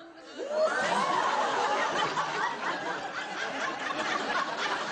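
Studio audience laughing, swelling up about half a second in and carrying on steadily.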